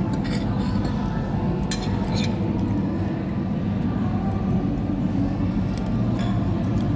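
A few light clinks of a metal fork and a small sauce cup against a ceramic dinner plate: near the start, about two seconds in, and again near six seconds. Under them runs a steady low rumble of background noise.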